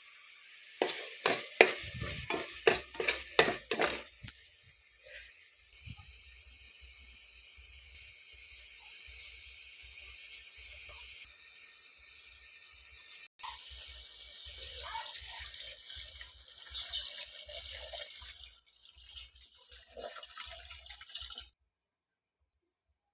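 Cooking sounds: a quick run of about a dozen sharp knocks, then a long steady hiss with faint scattered clinks, which stops abruptly near the end.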